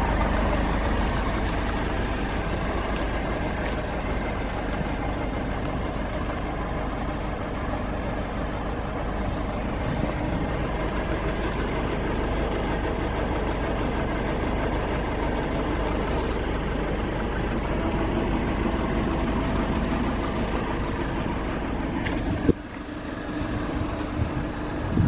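The 2.5-litre diesel engine of a Nissan NV350 Caravan van running steadily. A single sharp click comes near the end, after which the sound is briefly lower.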